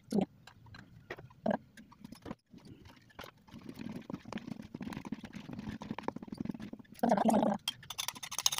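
Egg yolks being mixed into whipped egg whites in a stainless steel bowl: a few knocks at first, then a rapid rhythmic clatter of the mixing utensil against the bowl, with a louder burst near the end.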